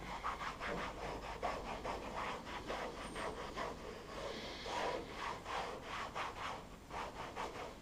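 Microfiber towel rubbed quickly back and forth over a hard plastic truck bed rail cap, a scratchy swishing stroke several times a second.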